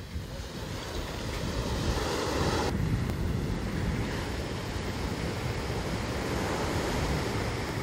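Ocean surf breaking and washing up a sand beach, with wind blowing across the microphone.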